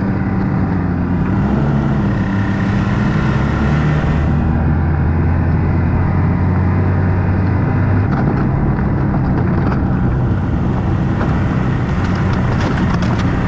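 Ski-Doo snowmobile engine running steadily under throttle while the sled travels over snow. About eight seconds in the deepest part of the drone eases off, and scattered crackles come in near the end.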